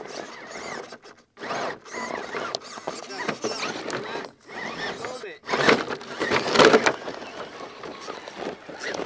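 Electric drivetrains of 1/10-scale RC crawler trucks whining in bursts as they climb over rocks, the pitch rising and falling with the throttle. The whine stops briefly about a second in and again about five seconds in, and is loudest just after the second stop.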